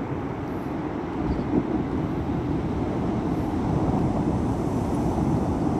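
Ocean surf: waves breaking and washing up a beach, a steady low rushing that grows gradually louder.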